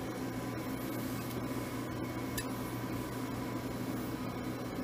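Glassworking bench torch burning with a steady hiss, over a steady low hum, with one light click about halfway through.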